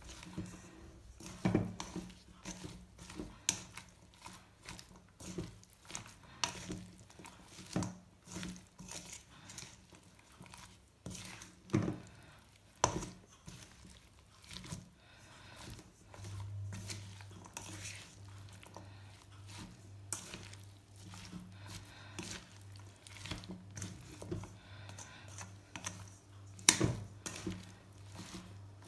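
A black spoon stirring and tossing shredded cabbage and carrot coated in flour-and-egg batter in a stainless steel mixing bowl: wet rustling with irregular knocks and scrapes of the spoon against the metal. A low steady hum comes in about halfway.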